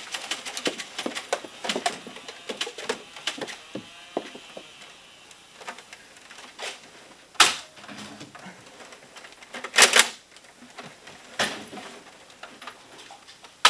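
Foam-dart blasters being handled and fired: a quick run of small plastic clicks and knocks for the first few seconds, then a few separate sharp clacks, the loudest a doubled one about ten seconds in.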